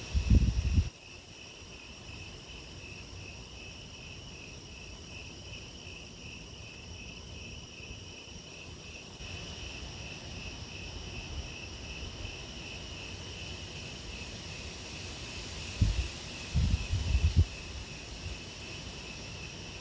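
Crickets chirping in a steady, pulsing high trill. Wind gusts buffet the microphone at the start and again near the end, the loudest sounds here.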